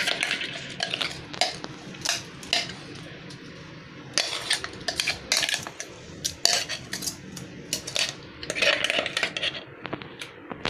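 Metal spoon scraping and knocking against the inside of a stainless-steel mixer grinder jar, emptying coarsely ground corn into a bowl: irregular clinks and scrapes, with a short lull about three seconds in and then thicker from about four seconds on.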